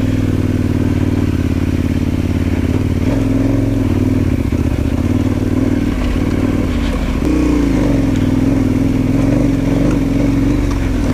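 Motorcycle engine running steadily on the climb, its note shifting about three seconds in and dipping, then picking up again, around seven seconds in with the throttle.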